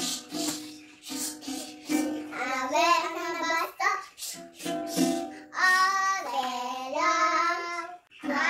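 Two young girls singing a song together, one strumming a ukulele as accompaniment.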